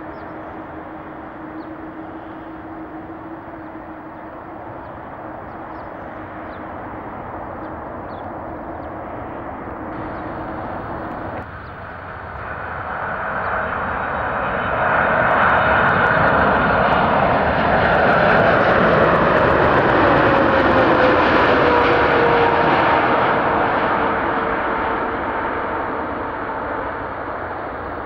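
Jet airliner passing close by, its engine noise swelling to a long peak and then fading, while the engine whine slides down in pitch as it goes past.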